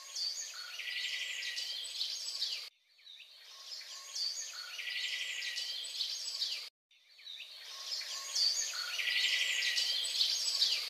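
Birds chirping and tweeting: one short recording of about four seconds played three times over, each pass fading in and then cutting off abruptly.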